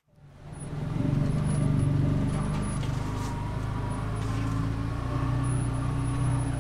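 Can-Am Defender HD10 UTV's V-twin engine running steadily while driving along a snowy trail, heard from inside the cab; it fades in over the first second.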